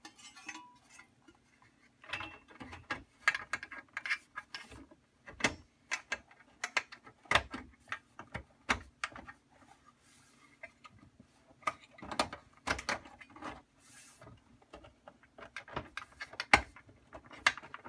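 Sheet-metal cover being fitted over a metal battery tray: irregular clicks, taps and short scrapes of metal on metal as it is shifted to line its tabs up with the holes in the tray's sides.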